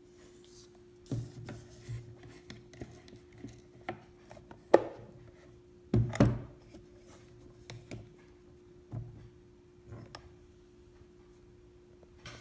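Small wooden pieces knocking and clicking as they are handled, at irregular times, with a few sharper knocks around the middle, over a faint steady hum.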